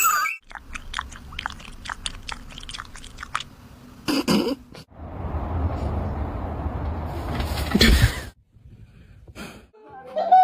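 Chewing: a quick run of crisp crunches in the first three seconds or so, followed by about three seconds of steady rushing noise.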